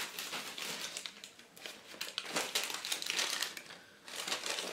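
Packaging being handled and rummaged through, with irregular crinkling and rustling that is loudest in the middle.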